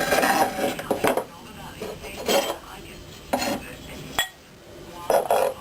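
Metal parts of a dismantled compressor motor being handled, clinking and knocking against each other several times, with a sharp click near the end.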